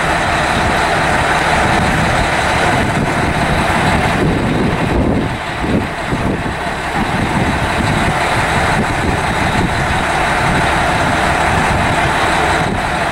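Mount Washington Cog Railway diesel locomotive M2's engine running steadily, with a brief dip in loudness about five seconds in.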